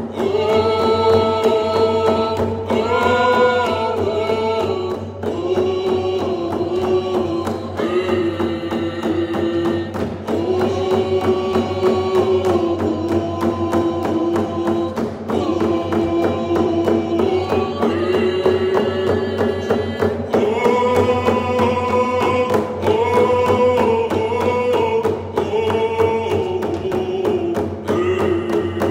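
Group of voices singing a canoe family song together over a steady beat of hand-held frame drums, the sung phrases held and shifting in pitch every second or two.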